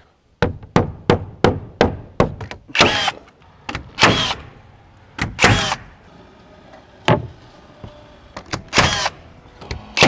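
Nail gun firing nails through LP WeatherLogic sheathing panels into the wall framing. A quick run of sharp shots comes in the first couple of seconds, then several louder single shots follow, spaced a second or more apart.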